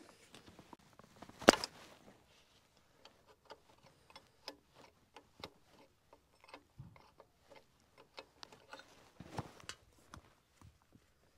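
Irregular small clicks and taps of hand tools and parts being handled in a tractor's engine bay, with one sharper knock about one and a half seconds in and a few louder clicks near the end.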